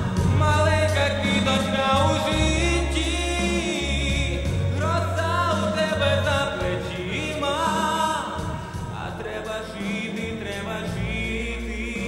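A young male solo singer singing a song through a handheld microphone, holding long notes with vibrato over an instrumental accompaniment with sustained bass notes.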